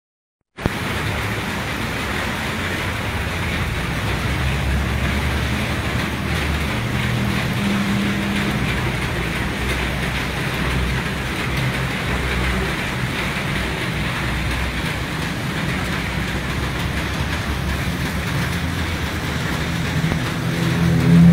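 Heavy rain falling on a flooded pavement and parked motorbikes: a steady hiss with a low rumble underneath. It starts about half a second in and gets somewhat louder near the end.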